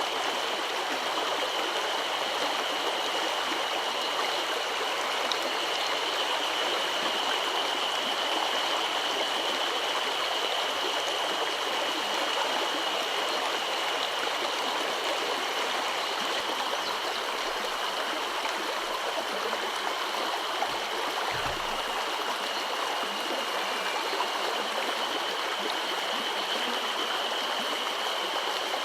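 Mountain headwater stream rushing steadily over rocks, with a thin steady high-pitched tone running beneath it.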